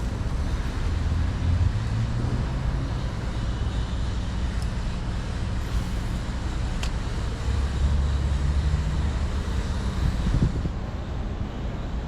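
Steady low rumble of road traffic, with a single sharp tick about seven seconds in.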